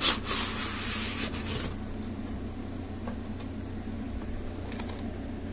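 A plastic torque-wrench case sliding out of a cardboard box: a knock, then about a second and a half of scraping. After that come a few faint handling taps over a steady low hum.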